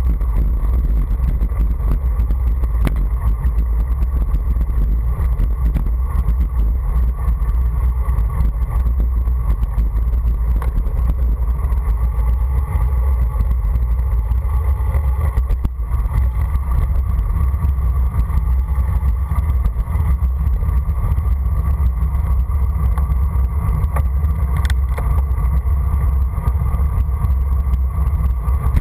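Steady wind rumble on the microphone and road noise from a camera moving quickly downhill on asphalt. It is a loud, even, low rumble without pauses.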